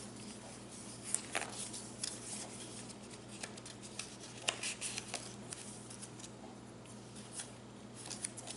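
Soft, scattered rustles and small clicks of a handmade paper junk journal being handled, its pages and tags moved, over a faint steady hum.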